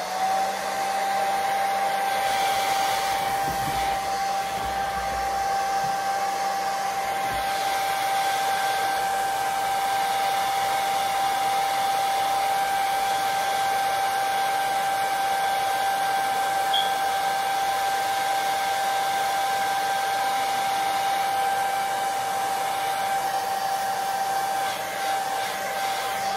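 Handheld hair dryer blowing steadily: a rush of air with a constant whine, switched on and spinning up right at the start.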